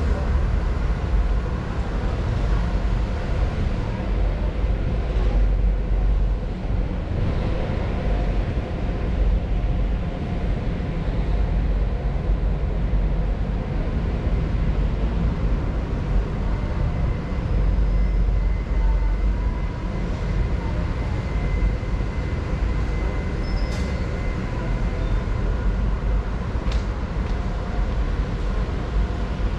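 Steady low rumble and hum of a large warehouse store's interior ambience, with two faint clicks near the end.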